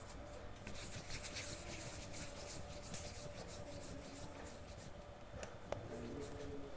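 Hands rolling a ball of yeast bun dough between the palms: faint, soft rubbing and light scratching, with one small click near the end.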